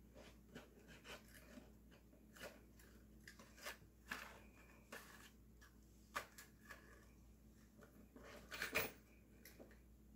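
Faint, scattered clicks and clacks of metal kitchen tongs and a reacher grabber being handled, with a louder cluster of clatter near the end.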